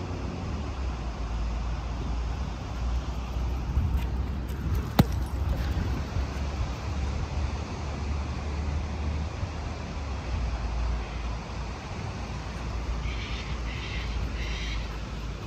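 Steady low rumble of wind on the microphone over the hum of distant road traffic, with one sharp click about five seconds in.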